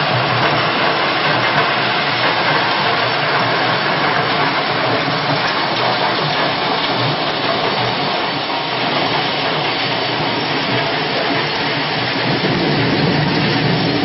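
Stone-crushing plant at work: a cone crusher and conveyor belts running, processing rock, making a steady, dense mechanical noise without pauses.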